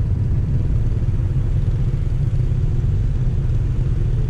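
Steady low rumble of a moving vehicle, even throughout with no changes.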